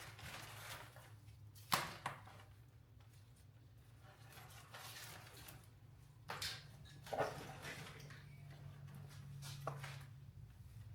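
Faint handling of a vehicle wiring harness: a few scattered clicks and rustles as wires and plastic connectors are moved and pulled out. A low steady hum sits underneath.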